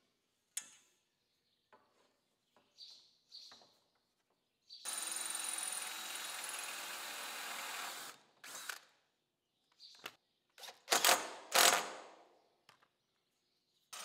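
Cordless drill running steadily for about three seconds, fastening a bent metal conduit hoop to a wooden frame. Scattered light knocks come before it, and two short loud bursts follow near the end.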